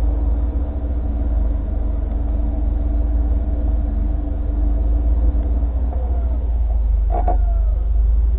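Hino 500 truck's diesel engine idling steadily with the oil filler cap off. It is running with its oil warning light on and, by the crew's check, no oil coming up to the valve gear: a sign of low oil pressure.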